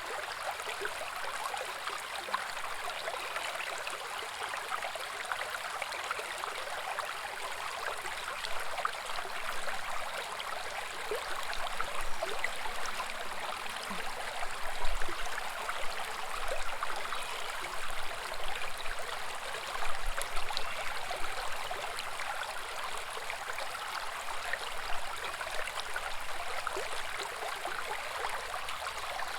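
Small woodland brook babbling and gurgling over rocks in a steady, even rush, a little louder in the middle with a few faint low thumps.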